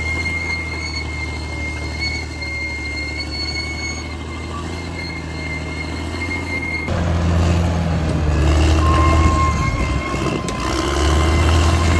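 Caterpillar D6R XL bulldozer's diesel engine running, with a steady high-pitched squeal over it. About seven seconds in the engine comes under heavier load and gets louder.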